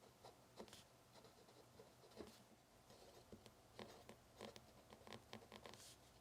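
Faint scratching of a pen or pencil writing and drawing on paper: short, irregular strokes, more frequent in the second half, while dimensions are copied onto a hand-drawn sketch of a replacement part.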